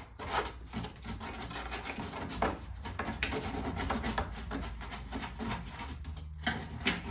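Small hand brush scrubbing caked, crusty dirt from around a car's lower door hinge, in a run of irregular rough rubbing strokes.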